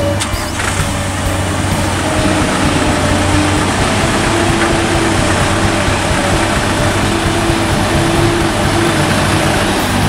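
Diesel engines of a Komatsu PC200 hydraulic excavator and a dump truck running steadily while the excavator loads soil, with a hum whose pitch shifts slightly as the excavator works.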